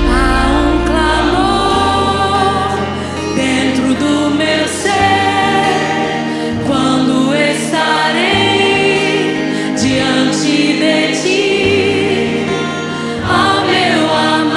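Live Christian worship music: a band plays while voices sing a flowing melody over held bass notes that change every second or two.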